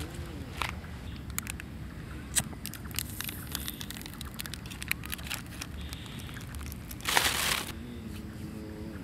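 Charcoal lumps clinking and scraping in a stainless steel folding fire pit as they are handled and lit: a run of sharp clicks and small knocks. A short loud rushing noise comes about seven seconds in.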